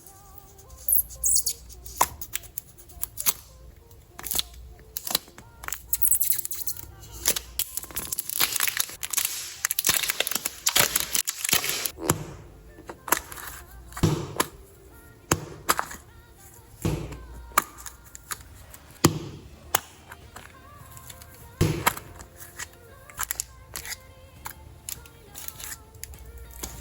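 Parcel packaging being handled and opened: plastic crinkling and tearing, with a dense rustling stretch in the first half and many sharp cracks and taps throughout. Quiet background music plays underneath.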